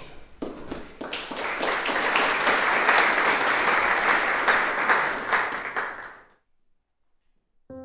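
Audience applauding, building about a second in and fading away near the end.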